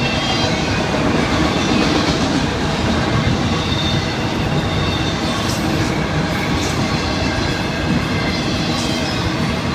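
Freight train's autorack cars rolling past: steady noise of steel wheels running on the rails.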